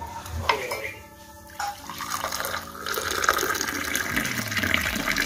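Hot tea poured in a long stream from a height into a glass, splashing and frothing. The pour starts about two seconds in, grows louder, and stops abruptly near the end.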